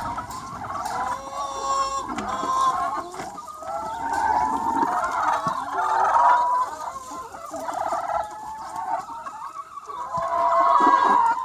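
A large free-range chicken flock, clucking and calling over one another without a break, many birds at once.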